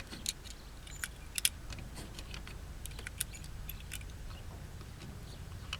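Scattered light clicks and small metallic rattles from handling the .22 Magnum rifle and its cartridges while reloading, over a low steady rumble. The two sharpest clicks come about a third of a second and a second and a half in.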